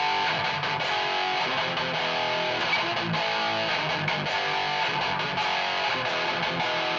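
Electric guitar with a Seymour Duncan Blackouts active bridge pickup, played through a Peavey 6505 Piranha amp and 1x8 cabinet: high-gain distorted metal riffing, with chords changing throughout.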